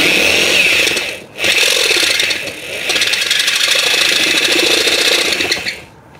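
Electric drill running an HSS step drill bit, cutting into thin sheet metal to enlarge an existing hole. It stops briefly about a second in, starts again, and cuts off near the end.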